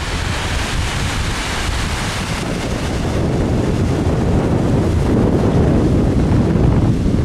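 Wind buffeting the camera microphone over small surf washing onto a sandy beach. The wind rumble grows louder about halfway through.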